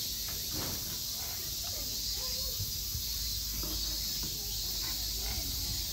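Steady outdoor background hiss with faint, distant voices of people; the walking tortoise makes no distinct sound.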